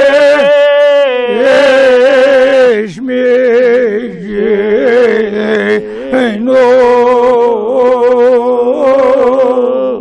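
A man singing a Kashmiri marsiya, an elegy for Imam Husayn, without accompaniment: long held notes that waver and turn, broken by a couple of short breaths.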